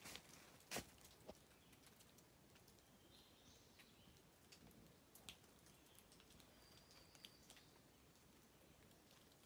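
Near silence with a few faint bird chirps, and a couple of soft footsteps on leaf litter in the first second and a half.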